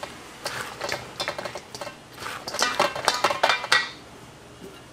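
A silicone spatula tossing fried chicken pieces in sticky glaze in a metal bowl: a quick run of clattering and scraping knocks against the metal, fading out about four seconds in.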